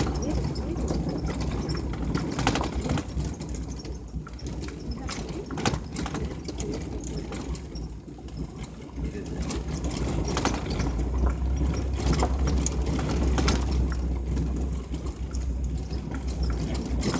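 Vehicle driving along a rough dirt track: a steady low engine and road hum, with rattles and knocks as it goes over bumps.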